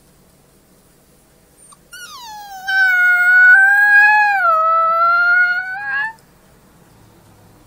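A wolf pup howls once, a long high howl lasting about four seconds. It starts about two seconds in with a falling glide, wavers and dips, then rises briefly just before it cuts off.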